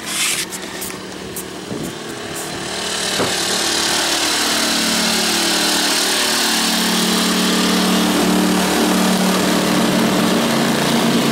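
A pair of Champion 2000-watt inverter generators running in parallel under load from an RV air conditioner. The sound grows louder over the first few seconds and then holds as a steady small-engine hum whose pitch wavers slightly.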